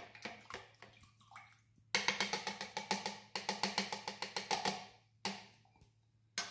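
Metal spoon clicking rapidly and evenly against the inside of a plastic measuring jug while stirring yeast into cold water, in two spells with a short pause between, then a single knock near the end.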